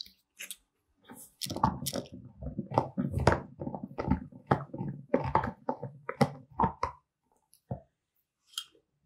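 Boxer dog gnawing on a shed deer antler: a dense run of irregular clicks and crunches of teeth on antler, which stops about seven seconds in, with only a click or two after.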